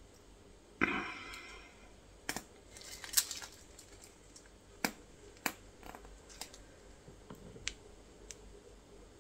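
Plastic mixing cup, stirring stick and waste pot being handled while leftover epoxy resin is scraped into the pot: a knock with a short scrape after it about a second in, then scattered sharp clicks and taps of plastic on plastic.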